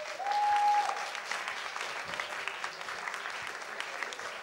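Audience applauding after a speech, loudest in the first second and then settling to steady clapping, with a short held high note cutting through near the start.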